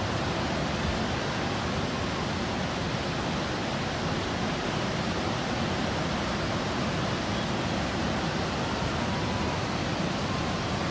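Floodwater pouring through a dam's open spillway gates and crashing into the foaming pool below: a steady, dense rushing.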